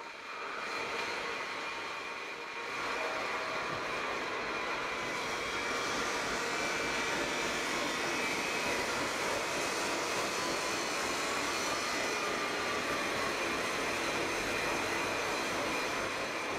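Hydraulic press-type die spotting machine running under power as its platen and table move: a steady mechanical whir with faint whining tones, growing louder about three seconds in and then holding level.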